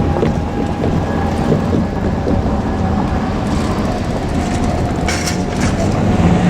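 JR Kyushu KiHa 200 diesel railcar running past on the line, its engine and wheels rumbling steadily with some rail clatter. A steady high tone sounds over the rumble, and a short hiss comes about five seconds in.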